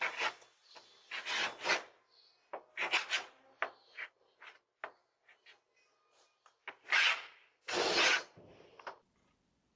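Something sharp scratching into a door in a series of short, irregular strokes, some in quick pairs, the loudest two near the end.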